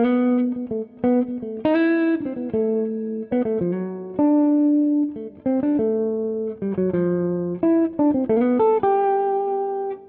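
Background music: a guitar playing a melody of single plucked notes, each ringing out and fading.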